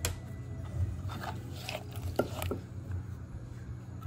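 Wooden pestle and spoon working cut cherry tomatoes in a clay mortar: a string of irregular dull knocks against the pot, roughly half a second to a second apart.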